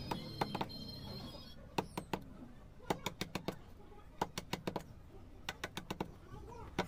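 Hand carving tool scraping and chipping a soft natural-stone relief border, making an irregular string of short, sharp ticks. Background music ends about a second and a half in.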